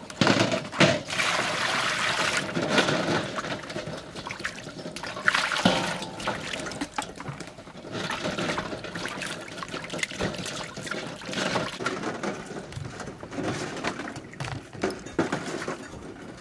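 Water sloshing and splashing in a large steel basin as eggs are washed by hand, with irregular light knocks of shells against the metal and each other.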